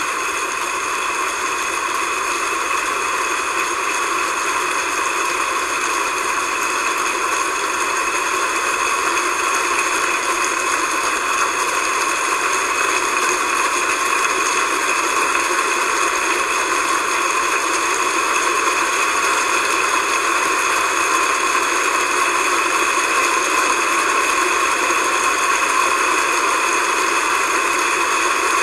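A large concert-hall audience applauding steadily after a performance, the applause slowly building.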